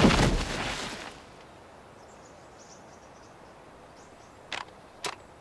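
A sudden heavy thud as a body is thrown down, dying away over about a second. It is followed by a faint background of insect chirping, with two short clicks near the end.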